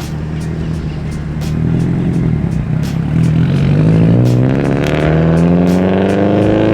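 Car engine and exhaust running steadily, then accelerating: the pitch climbs and the sound grows louder from about three seconds in and stays high through the end.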